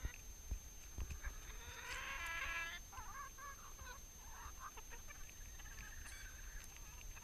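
Flock of domestic hens clucking and calling while they crowd in to peck bread from a hand, with one louder drawn-out call about two seconds in and shorter calls after it.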